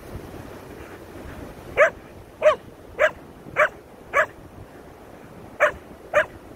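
A Keeshond barking in short sharp barks: five in a quick even run, a brief pause, then two more.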